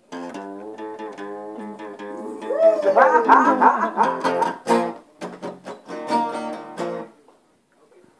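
Steel-string acoustic guitar being strummed, chords ringing on between strokes, with a run of sharper strums between about three and five seconds in. The playing stops about a second before the end.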